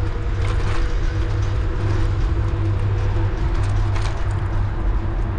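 Steady low rumble and hiss of riding noise on a bicycle, wind on the microphone and tyres on the road, with a few brief light rattles.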